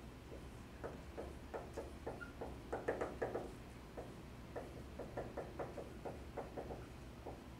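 Pen or stylus tapping and knocking against an interactive whiteboard's surface as letters are written: a run of short, light knocks, thickest about three seconds in and again around five to six seconds.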